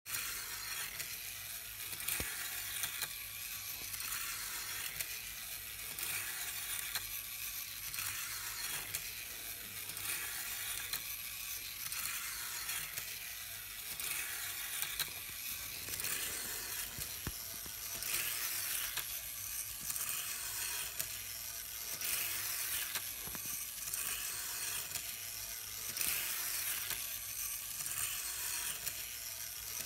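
N-gauge model bus driven by a small motorised power unit, circling a tight loop of model track: the tiny motor and gearing whirr and the wheels hiss on the rails, with a regular swell and fade as it rounds the loop and a few light clicks.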